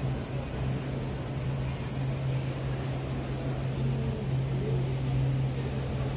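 Steady low mechanical hum over an even wash of background noise, with faint distant voices about four seconds in.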